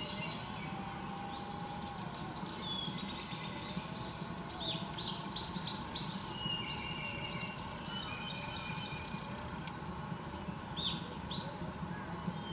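Wild birds singing: one gives a fast run of high, rising notes for several seconds, with other high whistled notes and fainter lower whistles around it, over a steady low background rumble.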